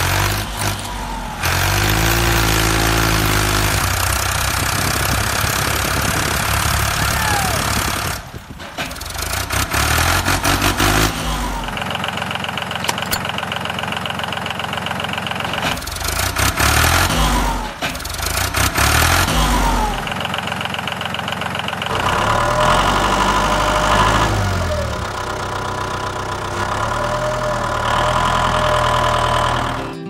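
Tractor engine idling and revving up and down again and again, with short dips in between.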